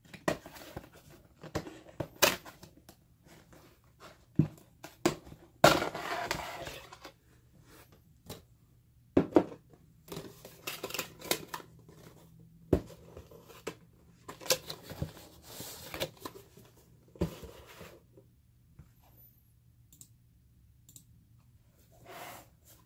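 Hands handling and opening a camera's retail packaging: scattered clicks, taps and scrapes of cardboard and plastic, with a longer rustling scrape about six seconds in and a quieter stretch near the end.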